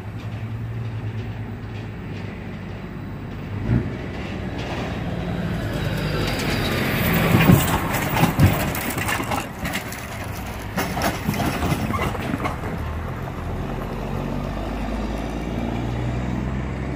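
A diesel semi tractor-trailer drives across a railroad grade crossing close by. Its engine grows louder as it approaches, with sharp clunks and rattles about halfway through as the tractor's wheels go over the rails, and more a few seconds later as the trailer's axles cross. Its engine fades into a steady hum as it pulls away.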